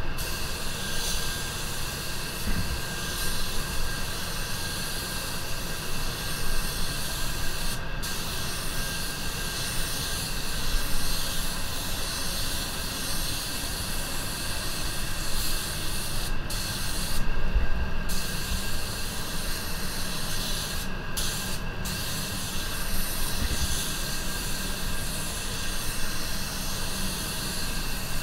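Anest Iwata WS400 Supernova 1.3 spray gun hissing steadily as it sprays automotive paint, a second coat. The hiss cuts out briefly several times where the trigger is released between passes, and a steady low rumble runs underneath.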